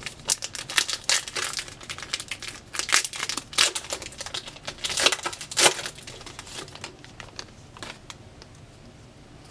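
Trading card pack wrapper being torn open and crinkled: a run of sharp, irregular crackles that thins out after about six seconds.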